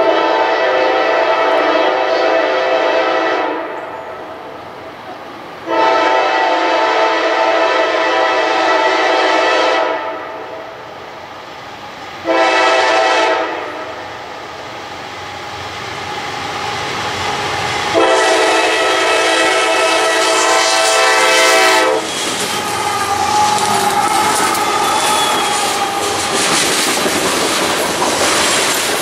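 Diesel locomotive air horn sounding the grade-crossing signal: two long blasts, one short and one long. The train's wheels then clatter over the rail joints as it passes.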